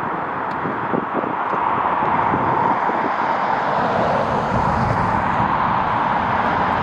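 Jet airliner engines running, a steady rushing noise that grows a little louder about two seconds in.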